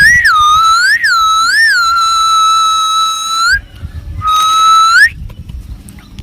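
Loud whistled notes: a long steady whistle that swoops up three times near the start and then holds, a short break, then a second held whistle that ends in a quick upward glide.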